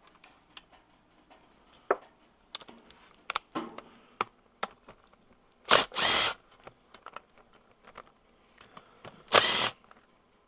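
A power drill with an Allen socket runs in short bursts, backing out the cam cover bolts on a Harley Ironhead Sportster engine case. There is a quick blip and a half-second whine at about the middle, then another brief burst near the end. Light clicks and clinks of metal come before them.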